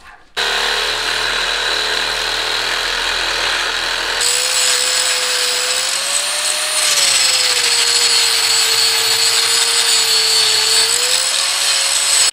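Angle grinder grinding into a seized, rusted steel ball-joint nut: a loud, steady grind over a motor whine that wavers slightly in pitch as the disc loads. It starts abruptly about half a second in, and the sound shifts abruptly about four seconds in.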